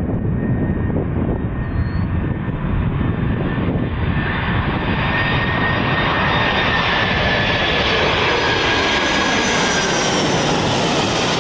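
Boeing 747 freighter's four jet engines on landing approach, passing low overhead: a steady rumble that grows louder and brighter as the jet nears, with an engine whine that slowly falls in pitch as it passes.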